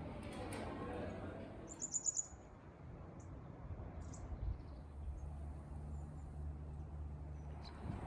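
A small bird chirping: a quick run of high notes about two seconds in and a shorter call about four seconds in, over outdoor background noise. A low steady hum sets in about halfway through and stops near the end.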